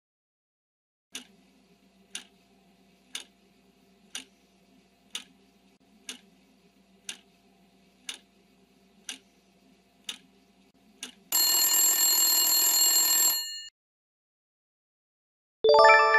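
Quiz countdown-timer sound effect: about ten ticks, one a second, over a faint hum, then a loud alarm-bell ring of about two seconds as time runs out. Near the end a bright ding sounds as the answer is revealed.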